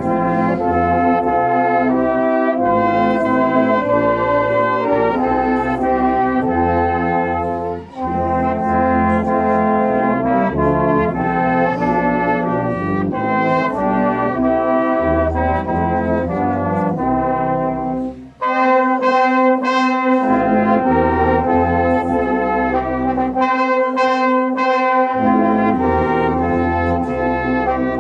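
British brass band of cornets, horns, euphoniums and trombones playing a Christmas carol in sustained chords. The music breaks off briefly between phrases about eight seconds in and again about eighteen seconds in.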